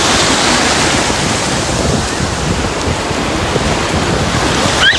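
Surf breaking and washing up on a sandy beach, a steady rushing noise. A short rising tone comes in just before the end.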